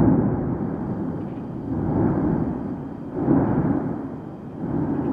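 Erupting La Palma volcano vent throwing up a lava fountain: a continuous deep rumble that swells and eases every second or two.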